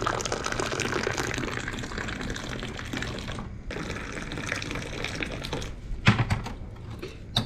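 Moroccan tea poured from a metal teapot held high into small glasses, a steady splashing stream that raises foam. The pour breaks off briefly about three and a half seconds in, then runs on. About six seconds in there is a sharp knock of a glass on the tray, and a smaller click near the end.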